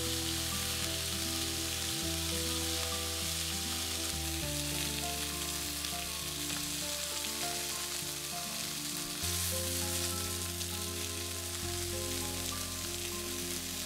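Chicken drumsticks sizzling steadily as they pan-fry in sesame oil, browning the skin, with background music of held notes underneath.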